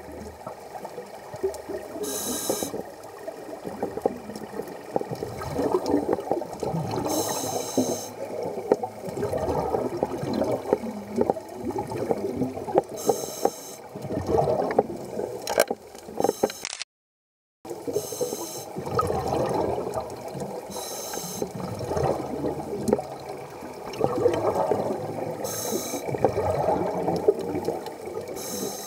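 Scuba breathing heard underwater through demand regulators: a short hiss on each inhale every five or six seconds, then a gurgling rumble of exhaled air bubbling out of the regulator.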